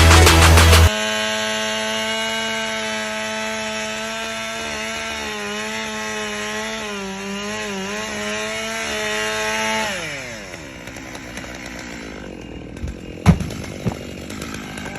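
Chainsaw at full throttle cutting wood, its pitch wavering as the chain loads in the cut, then released about ten seconds in and winding down to idle. A sharp knock near the end, then a lighter one.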